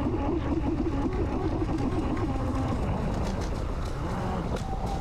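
Brushless-powered RC jet boat running out on the water: a wavering motor whine over a steady rush of water and wind.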